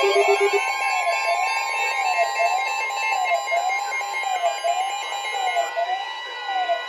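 Electronic alert tones from radio receivers playing together: a steady high tone is held throughout, while a siren-like tone sweeps up and down about once a second. A low pulsing tone cuts off about half a second in.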